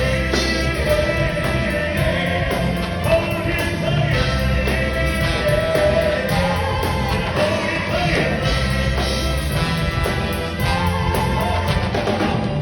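Band music with a singing voice: a cover of a country-pop ballad, playing at a steady level.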